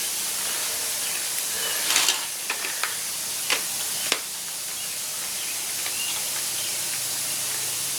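Grease gun being pumped into a zero-turn mower's wheel bearing: a few short clicks and knocks of the gun and fitting, mostly between two and four seconds in, over a steady hiss.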